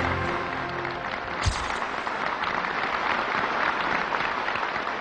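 A music track ends in the first half-second, then an audience applauds steadily. A single short thump sounds about a second and a half in.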